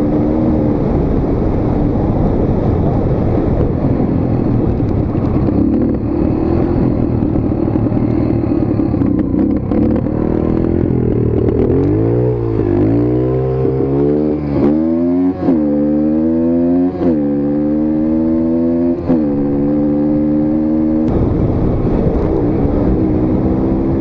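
Dirt bike engine running steadily, then about halfway through it is revved up and drops back over and over, roughly once a second, before settling back to a steady pitch.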